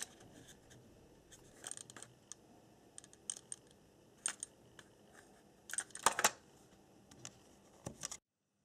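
Plastic compact cassette and its case handled in the fingers: scattered light clicks and rattles, with a louder clatter about six seconds in. The sound cuts off abruptly near the end.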